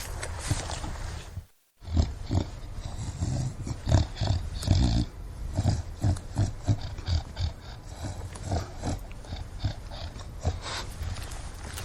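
English bulldog breathing noisily, with snorts and grunts in a quick, irregular run of short rough breaths. The sound cuts out briefly about a second and a half in.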